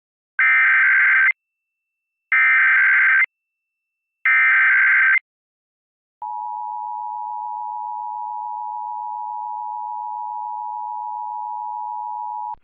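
Emergency Alert System test signal: three one-second bursts of digital SAME header data, about two seconds apart, then about a second later the steady two-tone EAS attention signal, which holds for about six seconds. It is a Required Monthly Test, with the spoken test message coming next.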